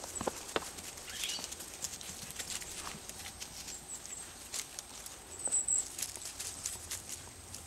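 Norrbottenspets puppies' paws scuffling through dry oak leaves and pine needles: an irregular scatter of small crackles and pats.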